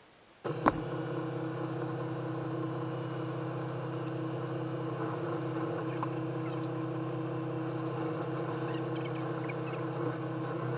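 Bench drill press switched on about half a second in and running steadily, a motor hum with a few steady whining tones, while its bit bores the bridge stud holes into a solid-body electric guitar.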